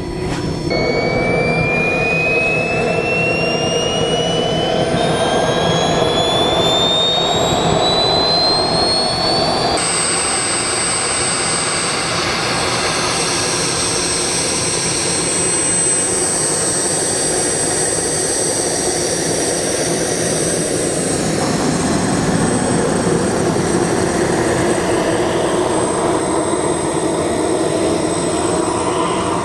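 JetCat small gas turbine of a jet-powered RC car spooling up: a high whine rises steadily in pitch for about ten seconds, then holds as a steady high whine over the rushing of the jet exhaust.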